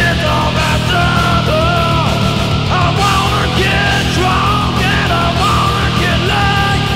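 Blackened death metal song playing: heavy distorted guitars and drums, with a lead line bending up and down in pitch above them.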